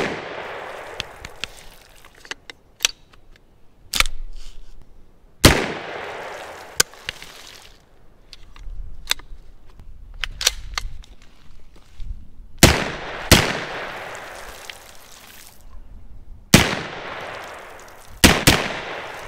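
HK SP5 9mm short-barreled rifle fired about nine times, one shot at a time at uneven intervals, each shot followed by a long echo through the woods. The gun is dirty, and the owner says it needs cleaning and lubricating before it will run properly.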